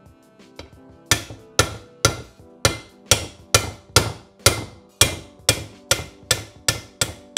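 Hammer striking a steel punch to drive a bearing out of a Triumph 650's aluminium crankcase half. About fourteen sharp metallic strikes, roughly two a second, start about a second in, and each rings briefly.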